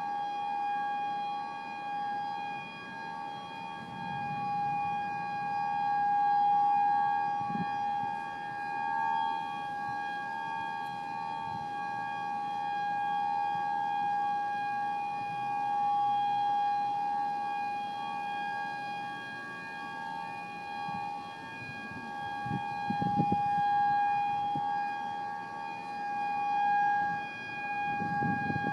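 Outdoor storm warning siren holding a steady two-note wail that swells and fades every few seconds, starting to drop in pitch at the very end. A few low rumbles come and go beneath it.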